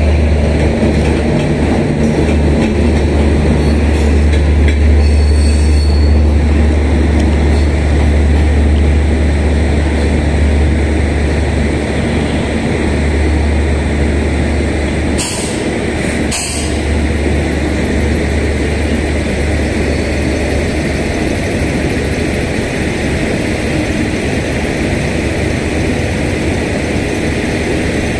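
Patalkot Express LHB coaches rolling out of the station and away down the line: a steady, loud low rumble of wheels on track that eases a little past halfway. Two sharp knocks about a second apart come a little past the middle.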